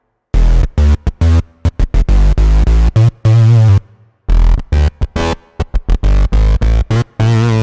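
Synth bass patch on a Roland FA-06/FA-08 workstation keyboard played as a riff of short, punchy notes with a few longer held ones, deep and loud, with a short break about four seconds in.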